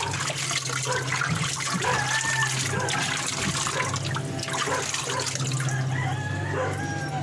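Water rushing through a washing machine drain hose over the steady hum of the machine's motor. Chickens call several times in the background.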